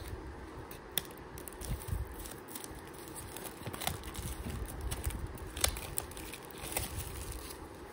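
Clear plastic shrink-wrap crinkling and tearing as it is peeled off a small cardboard earbuds box, in an irregular string of small crackles and clicks.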